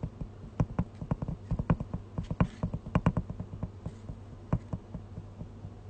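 Fingers tapping and handling a smartphone, heard through its own microphone as a quick, irregular run of small taps and knocks over a steady low hum. The taps stop about four and a half seconds in.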